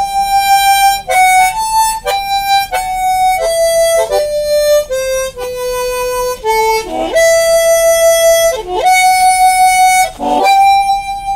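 Harmonica playing a slow melody of single held notes, cupped in both hands, with a few notes bent down and back up.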